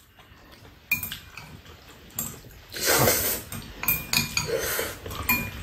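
Metal chopsticks clinking against bowls during a noodle meal, a few sharp clinks with a short ring, and a noisy slurp of noodles about three seconds in.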